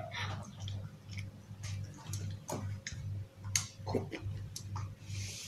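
Metal spoon clinking and scraping in a glass bowl of cornflakes and milk, with scattered short clicks, over a low hum that pulses about two or three times a second.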